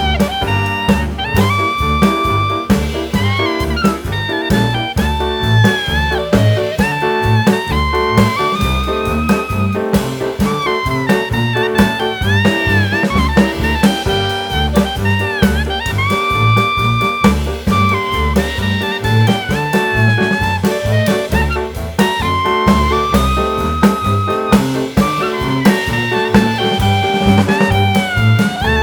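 Jazz background music with a steady beat: saxophone or brass melody over bass and drums.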